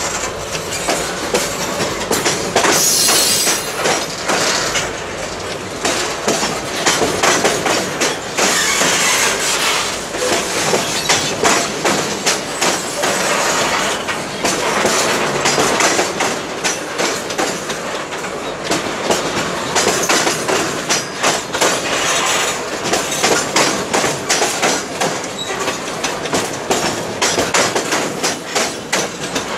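Tank cars of a metre-gauge freight train rolling past close by, their wheels clattering steadily over the rail joints, with a few brief high-pitched wheel squeals.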